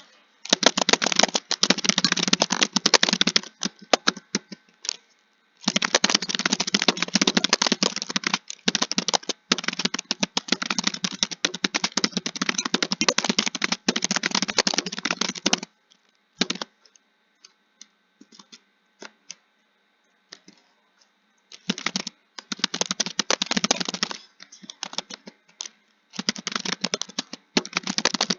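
Fast typing on a computer keyboard: long runs of dense key clicks, broken by a pause about two-thirds of the way through in which only a few single keystrokes sound.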